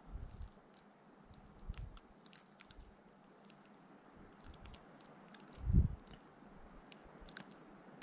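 Snowstorm wind: a faint steady hiss with low gusts rumbling on the microphone, the strongest about six seconds in, over a scatter of tiny crackling ticks.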